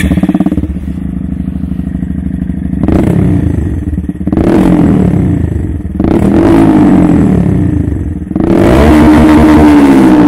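Honda Monkey 125's single-cylinder four-stroke engine through a full Akrapovic stainless-steel exhaust, idling and then blipped four times, the last rev held longest and loudest. Loud, with an open, unbaffled bark.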